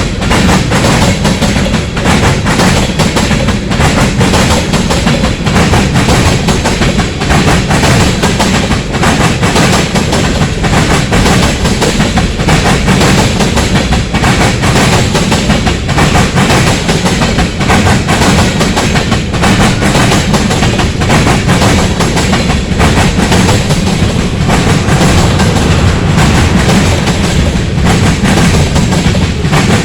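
Freight cars of a long CSX freight train rolling past, steel wheels clattering steadily and loudly over the rails with a deep rumble underneath.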